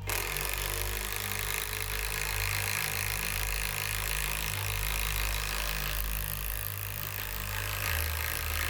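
Older-model Kobalt cordless impact driver hammering steadily as it drives a 1/4 in by 6 in lag screw into pressure-treated lumber. Its pitch drops slightly near the end as the lag goes deeper.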